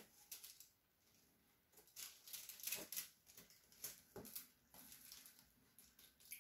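Faint, irregular clicking and pattering from a hand-spun turntable carrying a wet, paint-covered tile.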